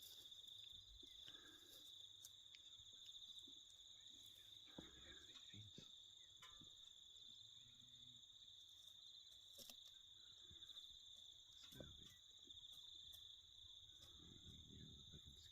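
Faint, steady high-pitched insect trill, like crickets, running without a break, with a few light clicks and rustles.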